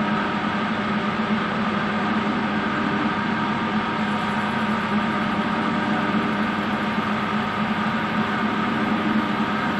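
Metal lathe running with a steady machine hum while the tool takes a light cut of about three thousandths of an inch in a piston's top ring groove; a faint high hiss joins about four seconds in.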